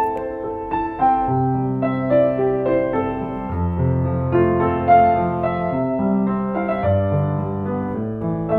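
Solo piano piece, a ballad, playing held chords over a low bass line.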